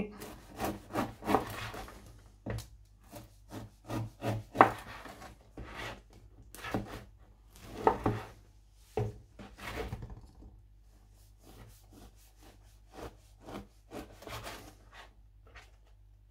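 Chef's knife cutting stale, crustless bread into small pieces on a cutting board: a run of short sawing strokes and taps of the blade on the board, coming thick and fast at first and thinning out after about ten seconds.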